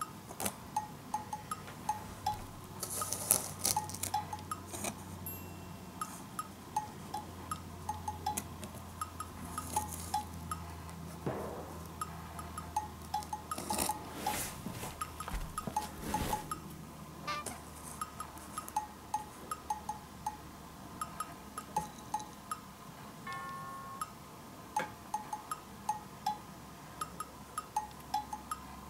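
Light background music: a bouncy tune of short plinking, chime-like notes. A few brief rustles are heard under it.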